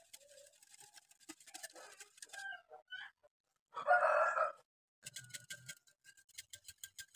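Wire balloon whisk clicking and scraping against a glass bowl of liquid. About four seconds in there is a brief, loud splash of tea poured into the creamy mixture, followed by more quick clicks from the whisk.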